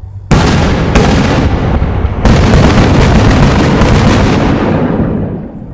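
Aerial fireworks shells bursting: three loud booms, the first a moment in, the next about a second in and the third just past two seconds, each running on into a long rumble that fades near the end.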